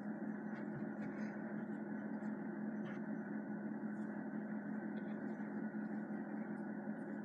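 Steady low hum with a hiss over it, unchanging throughout: room tone, with a few faint soft rustles as gloved hands move.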